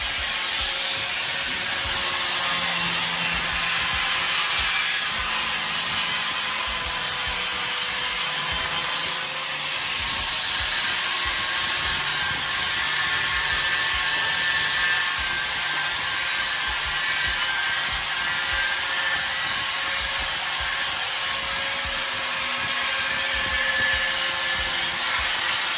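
Handheld electric angle grinder running against a steel frame: a steady whine under a rasping grinding noise, dipping briefly about nine seconds in.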